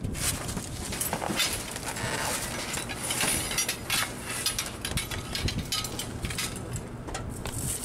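Rummaging through trash in a metal dumpster: cardboard and plastic bags rustling and shifting, with scattered clinks and knocks of scrap metal.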